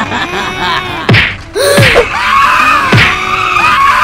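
Music with cartoon-style sound effects laid over it: three quick falling glides, each dropping steeply into a low thunk, and wavering tones that rise and fall.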